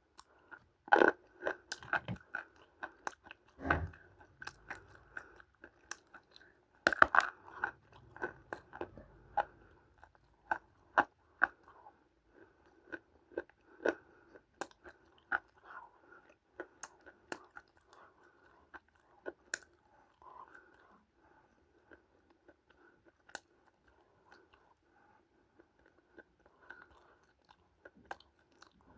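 Someone biting and chewing dry multani mitti (fuller's earth clay), with crisp crunching and sharp cracks. The loudest bites come about a second in and again about seven seconds in; the chewing then continues steadily and thins out near the end.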